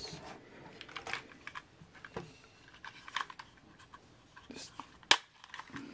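Plastic clicks and rattles as a Stanley precision screwdriver set's hinged plastic case is handled and opened, with one sharp click near the end.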